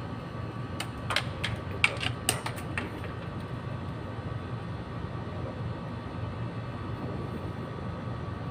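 Light clicks and taps from handling wire and tools at a control panel, several of them between about one and three seconds in, over a steady low background hum.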